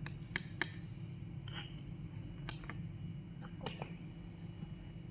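A few scattered light clicks and taps from utensils and containers being handled while measuring glue for slime, over a steady low hum.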